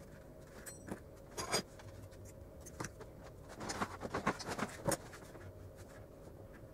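Hands handling a cord and small metal fire-starter parts: scattered light clicks and rustles, with a busier run of clicks and rattles about four to five seconds in, over a faint steady hum.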